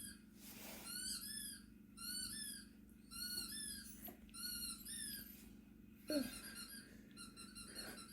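Faint squeaky chirping sound played through a laptop speaker: high arching squeaks in short groups about once a second, turning to quick twittering near the end.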